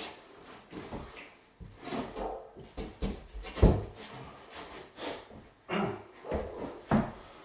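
A large chipboard floor panel being shifted by hand against a wall and over floor joists: irregular wooden scraping and knocking, with one heavy knock about three and a half seconds in.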